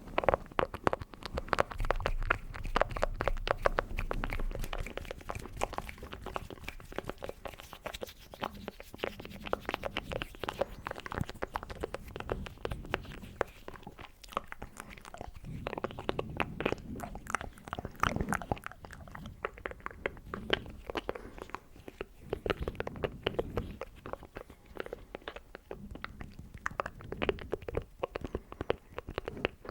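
Close-miked ASMR mouth sounds: a dense, irregular run of wet clicks and smacks.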